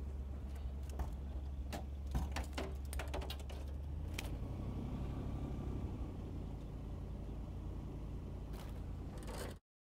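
A motor runs with a steady low hum. Sharp knocks and clicks sound on the boat's metal deck during the first four seconds as the shot fish and arrow are handled. The sound cuts off suddenly near the end.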